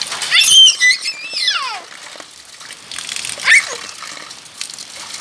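Children letting out high-pitched squeals and shrieks, two long falling cries in the first two seconds and a short one about three and a half seconds in, over the steady hiss of heavy rain.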